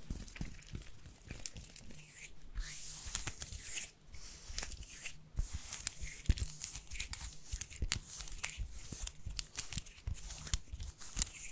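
Close-miked ASMR trigger sounds: dense, irregular crackling and rustling, with many small sharp clicks.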